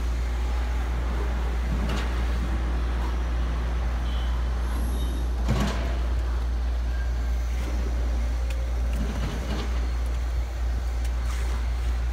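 A truck's engine running steadily with a deep, even rumble. A few brief scrapes and knocks sound over it.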